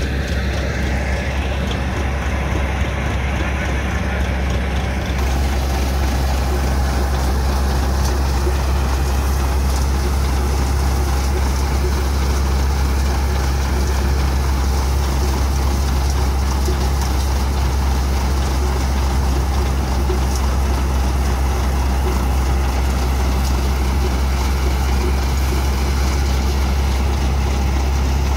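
A tractor-driven drum thresher running steadily, with the Sonalika DI-750 III tractor's diesel engine as a deep, constant drone under the rushing of the threshing drum and the straw being blown out. The rushing grows fuller about five seconds in.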